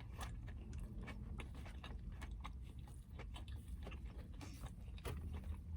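A person chewing a mouthful of food close to the microphone, with quiet, irregular wet clicks and smacks of the mouth.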